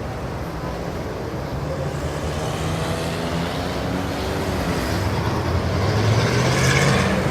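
Indian city street traffic: engines of cars, motorbikes and auto-rickshaws running. One vehicle grows louder, with its engine note rising, and passes close near the end.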